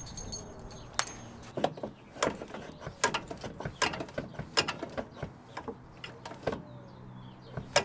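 Hand ratchet clicking in short, irregular runs as a bolt on the gear-shift linkage is turned, with one loud click near the end.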